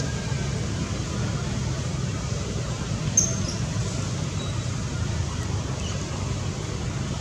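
Steady low background rumble, with one brief high squeak about three seconds in.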